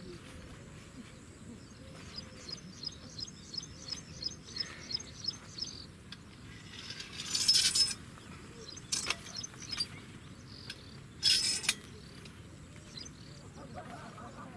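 Metal clinking and scraping from a folding gazebo's frame. It comes as two loud, short rasps with a ringing edge, each about a second long and a few seconds apart, with a few sharp clicks between them. Before them a small bird chirps in quick repeated notes.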